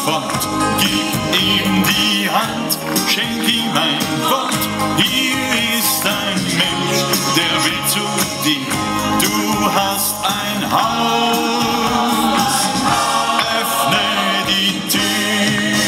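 Music with singing.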